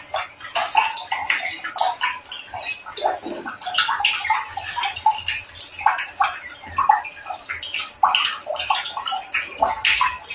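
Water running and splashing continuously, an uneven spattering sound.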